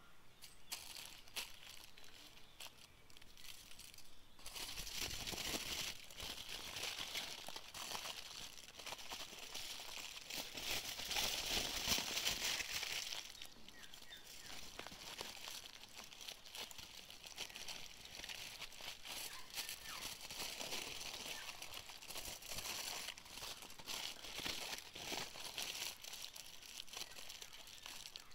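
Aluminium foil being folded and crumpled by hand into a parcel around pieces of meat for cooking on the fire, crinkling and crackling throughout, loudest about halfway through.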